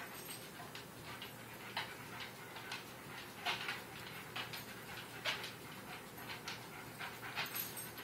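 A dog panting in short breathy puffs, roughly one a second.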